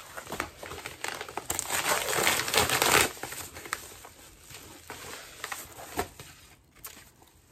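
A paper mailer package being torn open and rustled by hand. The crinkling and tearing are loudest about two to three seconds in, then thin out to scattered small crinkles and clicks.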